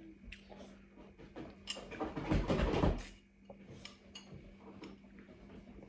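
Eating sounds at a meal: scattered light clinks and taps of cutlery and dishes, with a louder, longer noisy stretch about two seconds in.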